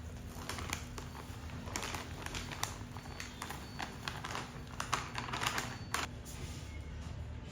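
A run of irregular light clicks, taps and short rustles, as of objects being handled, over a low steady hum; it stops about six seconds in.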